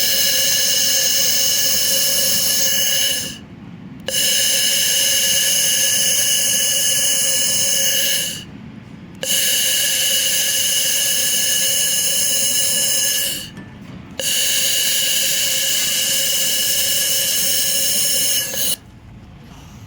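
Handheld fiber laser welder firing in four runs of about four seconds each, separated by pauses of about a second. Each run is a loud, steady, high-pitched whine that starts and stops abruptly.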